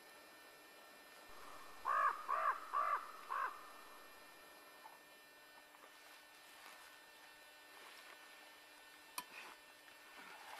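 A crow calling four short, harsh caws in quick succession, about two seconds in, then only faint background hiss with a couple of light clicks.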